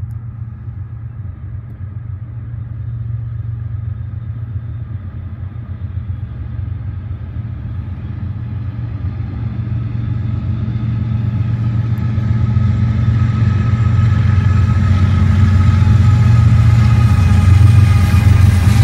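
Norfolk Southern diesel-electric freight locomotives approaching with a steady low engine drone that grows gradually louder as they draw near, reaching full loudness as the lead units come alongside near the end.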